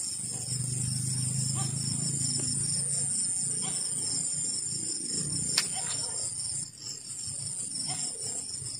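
Steady high-pitched chorus of night insects, with a low rumble in the first few seconds and a single sharp click about five and a half seconds in.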